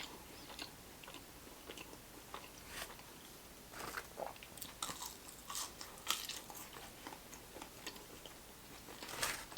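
Someone eating close to the microphone: chewing, with scattered soft crunches and mouth clicks.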